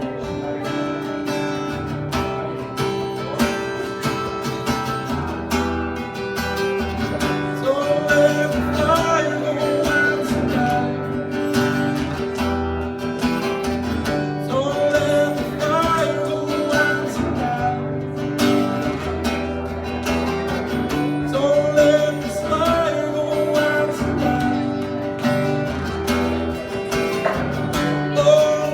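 Live acoustic guitar strummed steadily through an instrumental passage of a song. A higher melody line that slides between notes comes in for short phrases several times.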